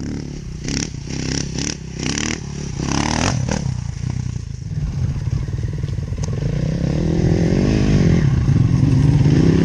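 Off-road motorcycle engine running and pulling, its revs and loudness building over the second half, with a series of clattering knocks and scrapes in the first few seconds.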